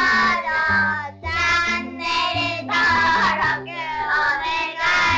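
Upbeat outro jingle: a high, childlike sung voice in short phrases over a bass line that steps up and down.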